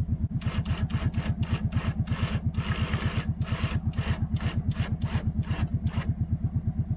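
ATV engine running at low revs with an even, rapid pulse as it pulls on a chain to stretch welded-wire fence tight. Sharp clicks are scattered over the engine sound.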